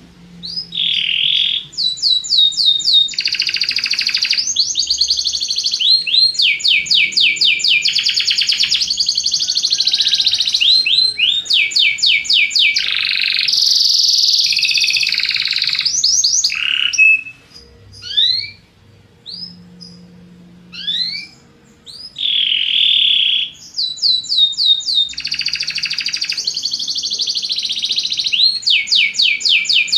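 Domestic canary singing: long runs of fast rolling trills, with a break of a few scattered chirps about halfway through before the song picks up again.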